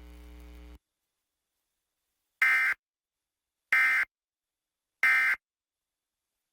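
Emergency Alert System end-of-message tones: three short, identical bursts of SAME digital data warble about a second apart, signalling the end of the required monthly test. A faint steady hum cuts off just before them.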